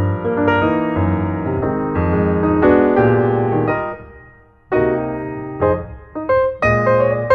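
Background piano music: a keyboard playing a melody over chords, with a brief drop in sound just past the middle before the notes start again.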